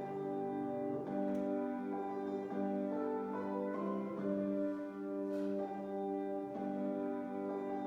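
Instrumental music of slow, held chords that change about once a second.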